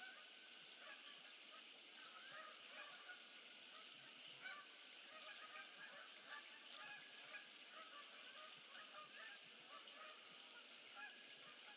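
Faint chorus of many short bird calls overlapping one another over a light steady hiss, as from a distant flock.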